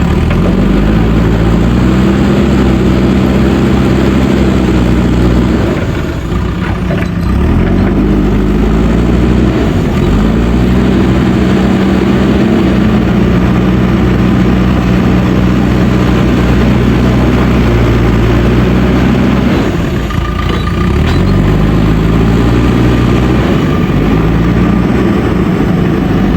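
JCB backhoe loader's diesel engine working under load, its revs rising about half a second in, then dipping and climbing again several times, around six, ten and twenty seconds in.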